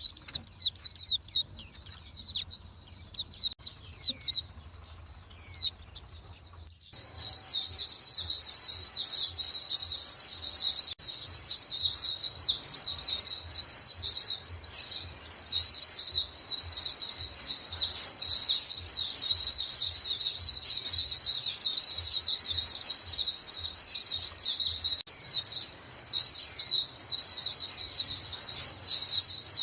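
A flock of white-eyes calling to each other: a dense, continuous stream of rapid high chirps. The chirping thins out briefly about four seconds in and again around fifteen seconds.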